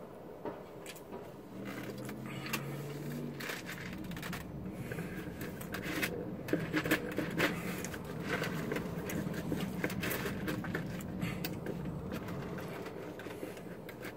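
Close-up eating sounds: chewing tough, overcooked chicken fajita taco and handling its foil wrapper, heard as irregular soft clicks and crackles over a steady low hum inside a car cabin.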